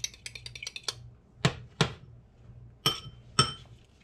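Metal fork beating an egg in a small glass bowl: fast, even clicking that stops about a second in. Then come four sharp clinks of the fork against the glass, the last two ringing.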